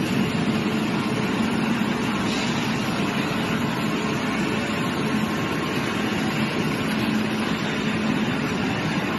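Drum wood chipper running: a steady machine drone with a constant low hum.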